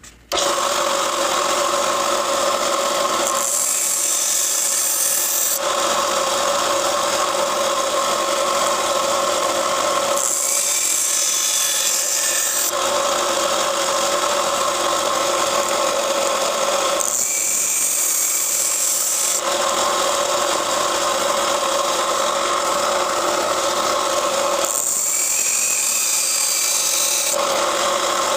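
A 1-inch belt sander running steadily while a knife blade is ground on the belt to put a new, steeper edge bevel on it. About four times the sound turns to a brighter, higher hiss for two or three seconds.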